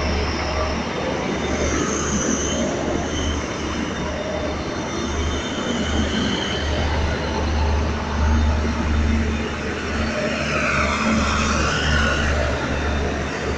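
Blue-and-white commuter train running along the platform, its cars and wheels rumbling on the rails, with a few faint high squeals near the end.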